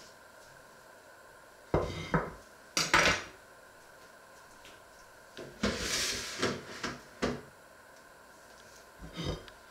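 Dishes and kitchenware being handled. A few sharp knocks come about two and three seconds in, a longer spell of clattering follows around six to seven seconds, and another knock comes near the end.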